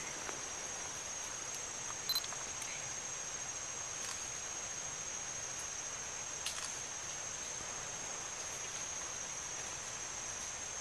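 Forest insects droning steadily at a high pitch, with a few faint clicks over it; the sharpest click comes about two seconds in.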